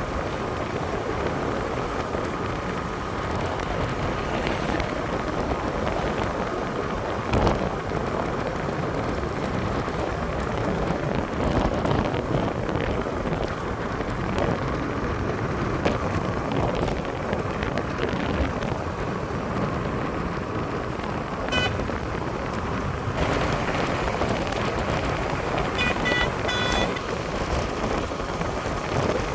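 Steady road and wind noise from a moving vehicle, with wind rushing over the microphone. Two brief bursts of rapid high chirping come in the last third.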